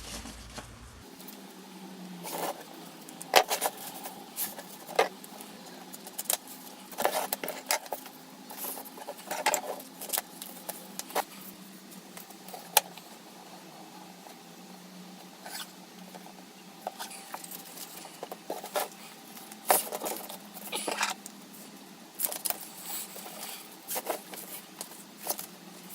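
Irregular clicks, snips and rustles of Velcro strips being handled, measured and cut to length.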